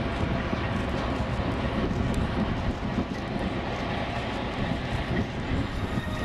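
VR Dv16 diesel shunting locomotive's engine running steadily while it moves wagons, a continuous low rumble.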